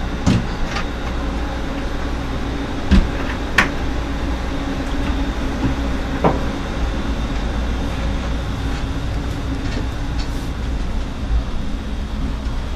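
Wooden cabinet doors knocked shut twice near the start, then a few scattered knocks as someone walks off, over a steady low rumble.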